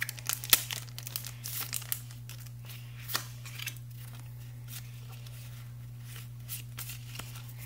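Wrapper of a Pokémon mini booster pack crinkling and tearing open by hand, with a sharp snap about half a second in. A few soft rustles follow as the cards are pulled out and fanned, over a steady low hum.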